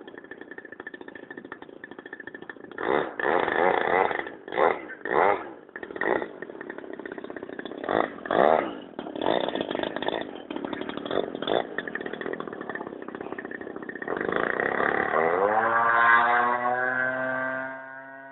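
Gas engine of a large RC Extra stunt plane in flight, the throttle opened and closed in repeated short bursts, then held at high power for a few seconds near the end, rising in pitch before it drops away.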